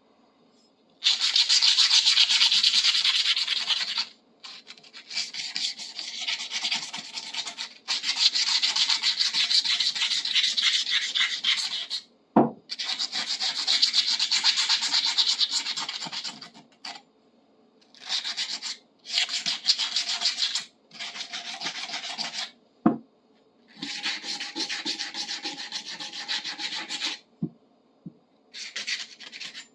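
Hand-sanding a steel adjustable wrench with sandpaper: runs of quick back-and-forth scrubbing strokes lasting a few seconds each, broken by short pauses, to clean off dirt and rust. Two short knocks come at about twelve and twenty-three seconds in.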